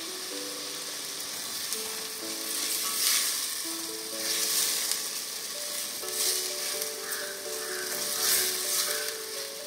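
Chopped tomatoes and onion sizzling in hot oil in a stainless steel pressure cooker, sautéing with salt. A wooden spoon stirs them, scraping against the pan about four times, over soft background music.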